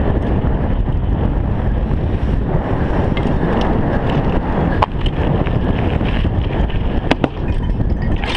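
Wind rushing over a chest-mounted action camera's microphone, mixed with the tyre noise of a downhill mountain bike rolling fast on asphalt. A couple of sharp clacks, about five and seven seconds in, come from the bike rattling over bumps.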